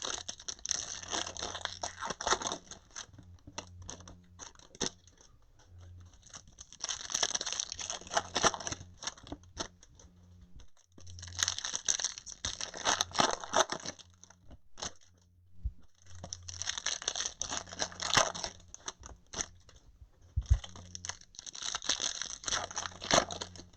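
Foil trading-card packs being torn open, with five separate bursts of ripping and crinkling a few seconds apart and light handling clicks between them.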